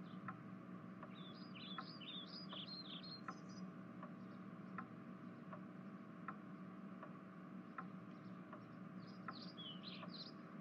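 Faint room tone with a low hum and a steady ticking about every three-quarters of a second, with two short runs of high chirping, one about a second in and one near the end.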